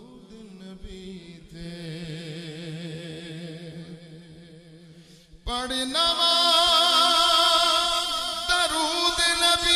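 Male voice singing a naat without instruments, a wavering, ornamented line over a steady low drone. About five and a half seconds in, a much louder, fuller voice takes up the melody.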